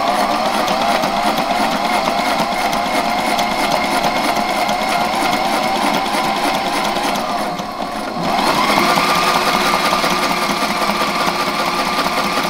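Electric sewing machine running continuously, stitching a long seam along a zipper strip. Its motor whine wavers at first, dips briefly about eight seconds in, then picks up to a higher, steadier pitch as the machine speeds up.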